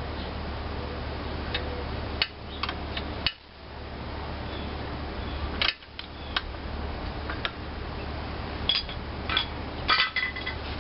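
Scattered metallic clinks and taps of hand tools working the side-cover nuts and bolts of an antique cast-iron engine, over a steady low hum.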